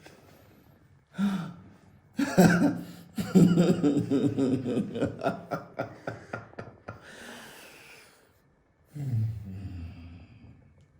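A person gasping and letting out a run of rapid, breathy vocal outbursts, then a long exhale and a falling sigh, reacting just after a chiropractic spinal adjustment.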